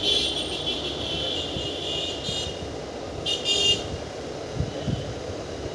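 Indian Railways diesel locomotive sounding its high-pitched horn: one long blast, then a short one about three seconds in, over the steady low rumble of the train.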